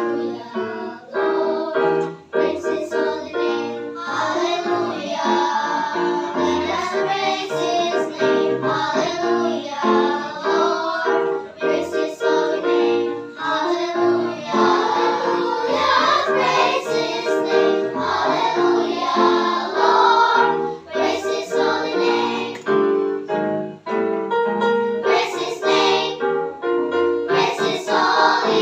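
Children's choir singing a worship song in Indonesian, with sustained instrumental accompaniment.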